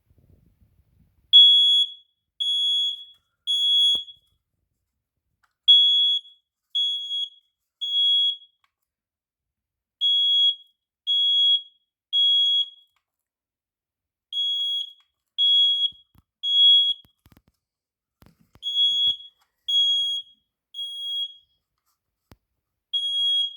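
Smoke alarm going off in its full alarm pattern: loud, high-pitched beeps in groups of three, each group repeating about every four seconds. It is still triggering after being reconnected following a water leak, so this is the alarm itself, not a low-battery chirp.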